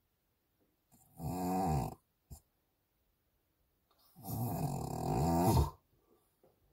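A person snoring in deep sleep, picked up by a phone's microphone inside a truck. There are two snores about three seconds apart, the second longer than the first.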